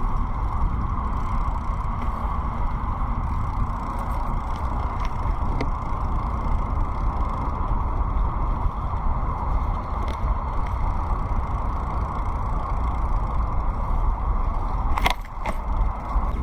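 Steady rolling noise of a bicycle ride, with a low rumble of wind on the microphone. A couple of sharp clicks come near the end.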